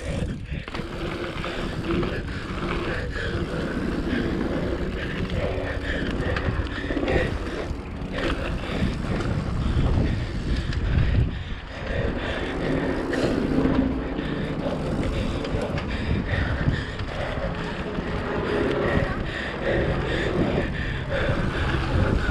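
Dirt jump bike riding a packed-dirt pump track: knobby tyres rolling over the dirt with a continuous rushing rumble, and the bike knocking and rattling as it runs over the rollers and berms.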